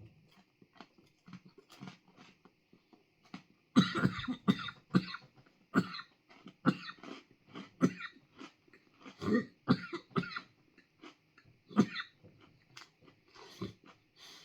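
A man coughing over and over in a fit, starting about four seconds in, brought on by the pepper dust of a freeze-dried 7-Pot Primo ice cream bar.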